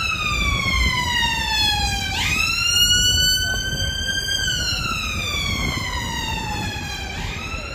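Emergency vehicle siren sounding a slow wail: the pitch falls gradually over a few seconds, then jumps sharply back up about two seconds in and again near the end. A low rumble runs underneath.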